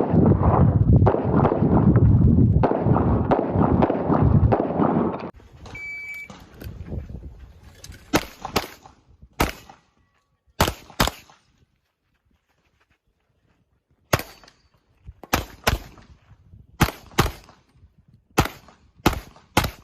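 A loud low rumbling noise for the first five seconds, then the short beep of a shot timer starting the run. After that come about fourteen pistol shots, many fired as quick double-taps with pauses between strings, and a longer gap partway through.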